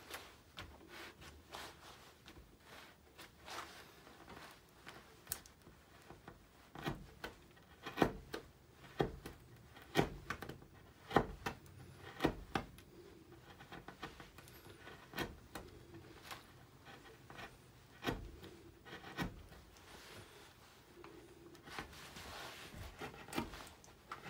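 Hand carving gouge pushed by hand through alder wood: an irregular run of short crisp cuts and scrapes, a few of them sharper and louder in the middle.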